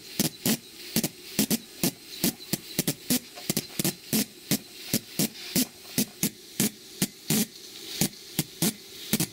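Model twin-cylinder marine steam plant running slowly on live steam during running-in, beating out sharp, regular clicks about three times a second over a faint steady hiss of steam.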